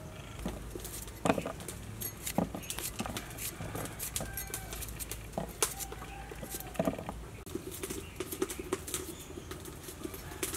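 Kitchen knife cutting cucumber and other vegetables on a wooden chopping board: irregular knocks and clicks, several strokes spread unevenly.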